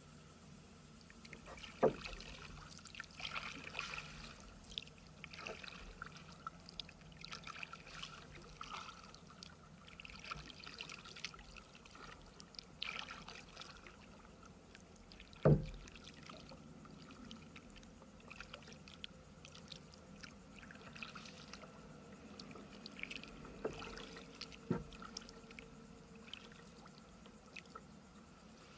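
Kayak paddling on calm water: the paddle blades dip and water trickles and drips off them in an irregular patter. Two sharp knocks stand out, one about two seconds in and a louder one about halfway through.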